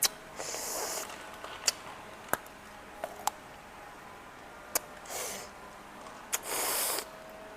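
Close-miked chewing of hard sweet candy: about seven sharp, crisp clicks and three short crackly rustles, the last and loudest near the end.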